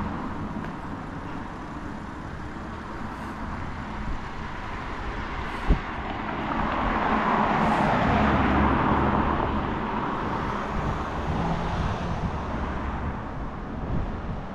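Street traffic with a road vehicle passing close by: its engine and tyre noise swells to a peak in the middle and fades away again. A single sharp click comes just before the swell.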